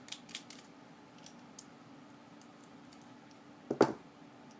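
Small clicks and taps of a Benchmade Griptilian folding knife and its small parts being handled, with one sharp, louder click near the end.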